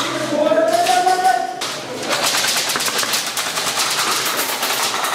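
Airsoft guns firing rapid full-auto strings of evenly spaced sharp cracks, starting about two seconds in and echoing in a small room. Before that comes a brief rising pitched call.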